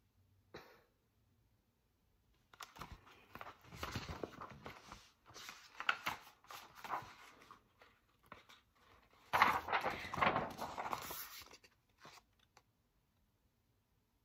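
Pages of a hardcover picture book being turned and handled, with paper rustling and crinkling in irregular bursts for about ten seconds. The loudest stretch comes about two-thirds of the way in.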